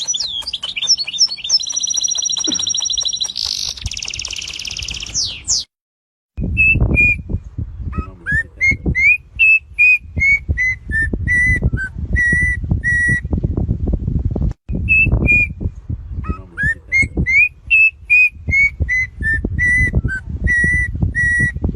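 Songbirds singing: at first fast, high trills, then after a short break a run of clear whistled notes that climb and fall, given twice, over a heavy low rumble.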